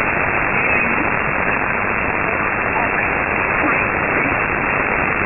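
Steady shortwave static hiss from an Airspy HF+ software-defined receiver in upper-sideband mode, tuned to 5.082 MHz, the frequency of Polish numbers station E11 'Oblique'. No clear signal rises above the noise, which is cut off sharply above about 3 kHz by the sideband filter.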